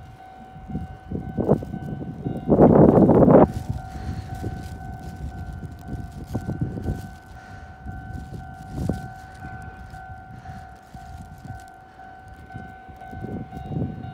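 Japanese railway level-crossing warning alarm ringing steadily in two pitched tones, signalling an approaching train. A brief loud rush of noise comes about three seconds in.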